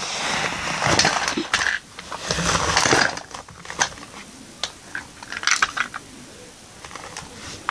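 Small plastic toys being handled and moved across a carpet, with rustling for the first few seconds and then scattered light clicks and knocks of plastic.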